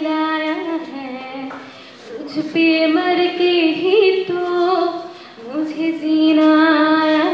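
Women singing a song into microphones on stage, in long held notes, with short breaks between phrases about two and five seconds in.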